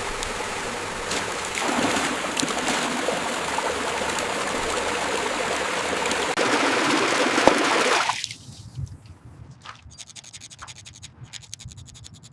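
Water running and splashing for about eight seconds, then cutting off suddenly, leaving a few faint scattered ticks.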